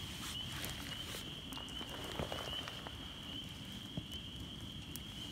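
A distant chorus of spring peepers: a steady high ringing made of many short rising peeps, over the patter of light drizzle with scattered small clicks.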